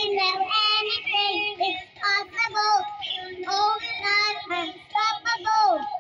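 A young girl singing into a handheld karaoke microphone, phrase after phrase with short breaths between.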